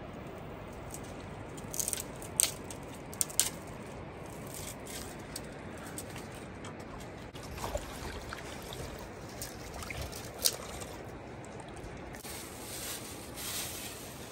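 Water trickling steadily along a narrow earthen irrigation channel, with a few short sharp clicks about two to three and a half seconds in and once more about ten seconds in.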